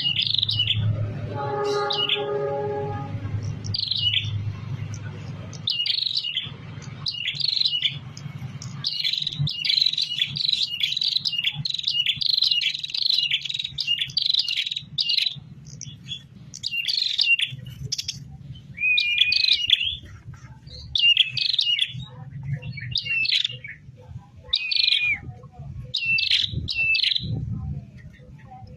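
A prinia (prenjak) singing repeatedly in sharp, high chirps, packed into a rapid run of notes partway through, then in spaced phrases. A steady pitched hum sounds under the song for about two seconds, about a second in.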